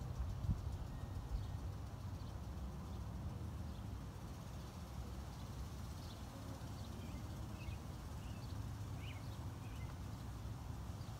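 Steady low outdoor background rumble, with faint short bird chirps coming in about halfway through.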